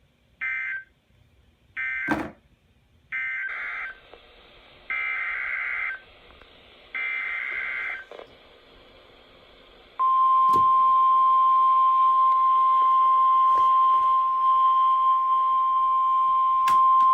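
Emergency Alert System broadcast on a NOAA weather radio. Five short, warbling SAME digital header data bursts are followed, about ten seconds in, by the steady 1050 Hz warning alarm tone, which marks the start of a new warning. There is faint radio hiss and a sharp click about two seconds in.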